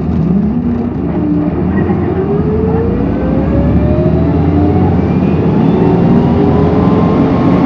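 Isuzu Erga diesel city bus (PKG-LV234L2) heard from the rear seat while accelerating: a deep engine and road drone, with a whine that climbs steadily in pitch. The bus is noted for an abnormal running noise, and this whine is typical of what marks it out.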